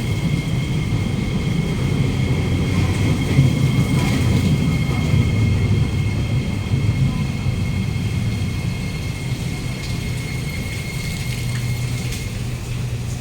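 Interior sound of a Kawasaki Nippon Sharyo C751B metro train car: a steady low rumble with two steady high whines from the train's equipment. It swells slightly a few seconds in and eases near the end.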